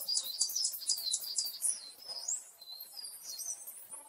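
Small birds chirping and twittering: rapid high-pitched repeated notes and short sweeping whistles.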